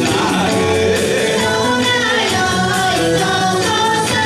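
Kawachi ondo performed live: a man singing into a microphone over the band's accompaniment with a steady beat.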